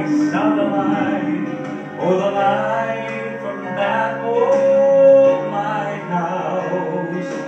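Male vocal quartet singing a gospel song in harmony through microphones; a little past halfway one voice holds a long note.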